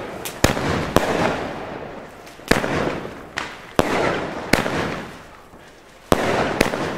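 Weco Big Crackles firework battery firing: about eight sharp shots at irregular intervals, each followed by a dense crackling hiss of the peony bursts that fades away. There is a brief lull shortly before two more shots near the end.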